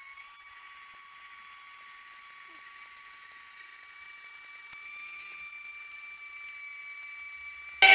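Dremel rotary tool running steadily with a thin, high-pitched whine as it cuts a marked slot in a panel.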